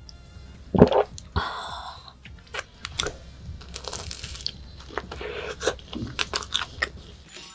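A slurp from a glass about a second in, then biting into and chewing a flaky croissant topped with whipped cream and strawberries: a run of crisp crackling crunches from the pastry.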